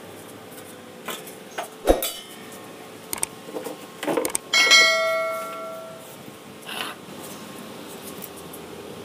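Stainless steel tubes knocking and clattering as they are handled, then a sharp clang about halfway through that leaves a bell-like metallic ring fading over a second or so.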